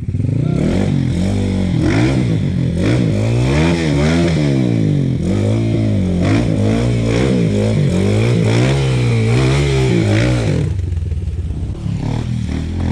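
A dirt bike's engine revved up and down over and over as the bike is worked through a deep mud rut. Near the end the revving stops and the engine settles to a lower, steadier run.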